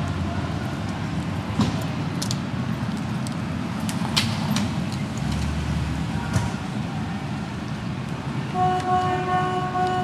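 City street ambience: a steady rumble of traffic with a few sharp knocks, and a vehicle horn sounding for about two seconds near the end.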